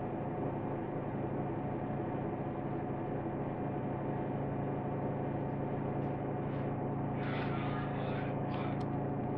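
Steady hum of a running desktop computer, its fans and electrical hum giving several steady low tones. A brief faint scratchy noise with a few light clicks comes about seven seconds in.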